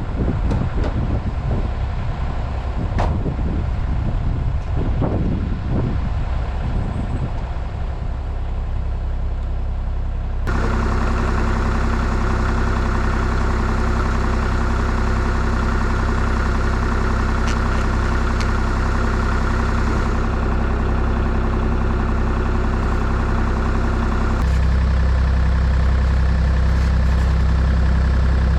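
Irregular knocking and handling noises, then a compact diesel engine running steadily, its note changing abruptly to a deeper one near the end.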